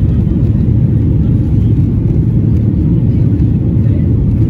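Steady low rumble inside a Boeing 737 airliner's cabin: jet engines and airflow heard from a window seat over the wing, with the flaps extended at low altitude.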